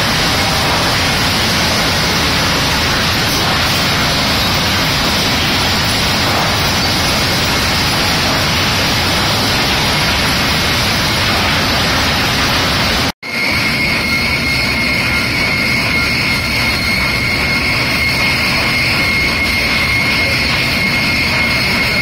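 Sawmill machinery running: a loud, steady mechanical din from conveyors and processing equipment. After a momentary dropout about two-thirds of the way through, a steady high whine sits over the din.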